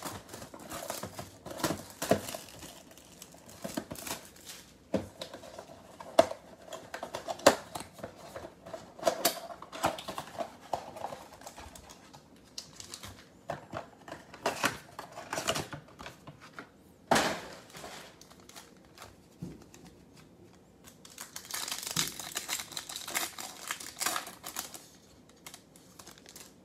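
Plastic shrink-wrap crinkling and tearing as a sealed trading-card box is unwrapped, with scattered clicks and taps of the cardboard box being handled. Near the end a foil card pack crinkles steadily as it is torn open.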